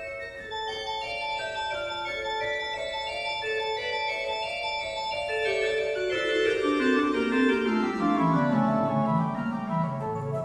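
Instrumental background music: a melody of held notes, with a run stepping down in pitch over several seconds in the second half, the lower notes louder.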